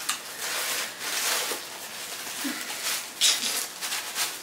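Rustling and swishing as a long wig and its bag are handled and the wig's hair is shaken, with short sharper rustles about three seconds in.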